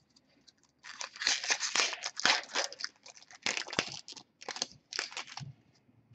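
Foil wrapper of a hockey trading-card pack being torn open and crinkled by hand: a run of irregular crackling bursts starting about a second in.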